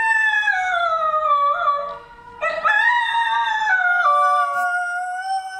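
Belgian Tervuren dog howling: two long howls, the first sliding down in pitch and breaking off about two seconds in, the second starting after a short pause and settling onto a steady pitch.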